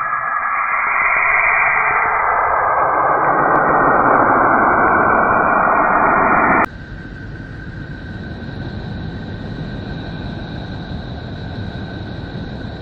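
Sonified spacecraft radio and plasma-wave recordings: a dense hiss that swells over the first couple of seconds, then cuts off abruptly about six and a half seconds in to a quieter hiss with a thin steady high tone running through it.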